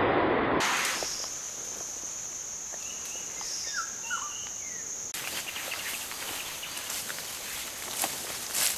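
Steady high-pitched insect drone with a few short bird chirps. After about five seconds it gives way to rustling and footsteps through tall grass, with a louder swish near the end.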